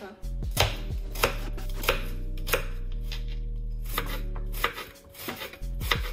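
Kitchen knife chopping a peeled onion on a cutting board. Sharp knocks come about every two-thirds of a second, then quicken into closer cuts from about four seconds in.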